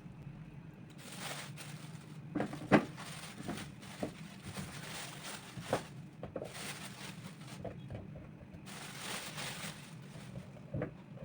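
Household items being handled and set down: a series of light knocks and clicks, the loudest about three seconds in, with soft rustling between them and a faint steady low hum.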